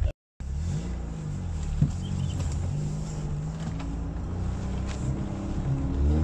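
Lada Niva's engine running under load off-road, its revs rising and falling, with a single sharp knock about two seconds in. It starts after a split-second gap.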